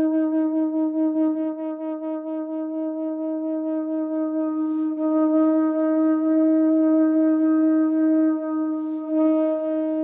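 Carved conch-shell trumpet (pututo) blown as one long, steady low note, with brief dips in loudness about five and nine seconds in.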